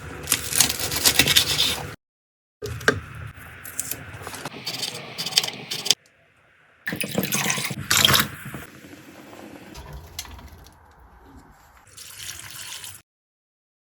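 Kitchen food-preparation sounds in three short clips cut hard together: water splashing and pouring, with clattering and scraping.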